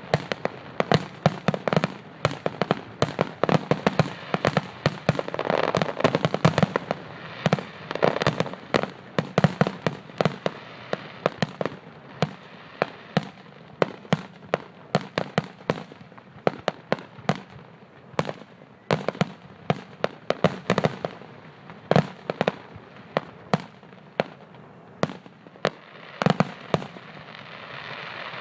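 Fireworks finale: a rapid, dense barrage of aerial shell bursts, many booms a second over a continuous crackle, thinning to scattered bangs near the end.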